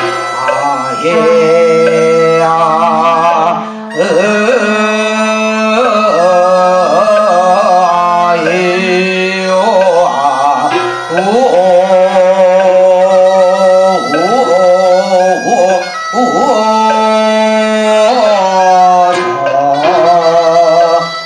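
Ritual music: a wavering, gliding melody line over a steady low drone, with brief pauses between phrases.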